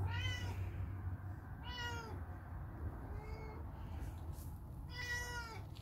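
A small kitten meowing four times, short high-pitched calls that rise and fall, the third one fainter and lower. A steady low hum runs underneath.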